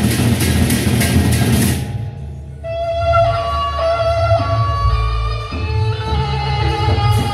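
Sasak gendang beleq ensemble playing. Large barrel drums sound under clashing cymbals, and the cymbals stop about two seconds in. After that, ringing pitched gongs carry a melody of held notes over the drums.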